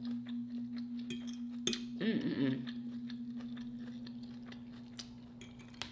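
Metal fork clicking and scraping on a plate of food, a string of short sharp clicks over a steady low hum that slowly fades. A short hum of the voice comes about two seconds in.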